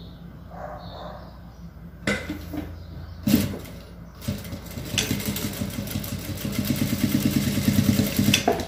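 Jack industrial straight-stitch sewing machine. A few clicks come first, then about five seconds in it runs a short burst of stitching, a rapid, even ticking that lasts about three and a half seconds, as it sews shut the end of a soft-fleece belt.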